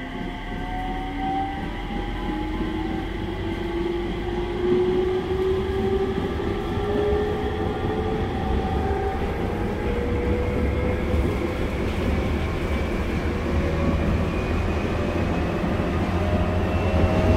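Inside a JR 701 series electric train car: the MT65 traction motors whine in several tones that climb slowly in pitch as the train gathers speed, over a steady rumble of wheels on rail.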